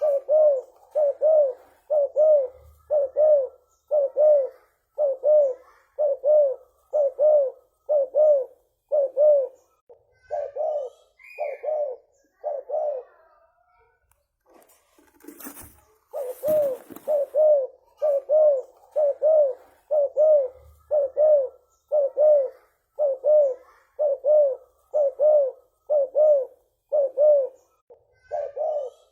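Spotted dove (tekukur) cooing in a long, rapid series of short, even coos, about one and a half a second. The series breaks off for about three seconds midway and restarts after a sharp knock.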